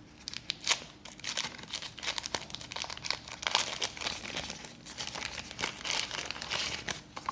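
Packaging wrapping crinkling irregularly in the hands as a camera mount accessory is unwrapped.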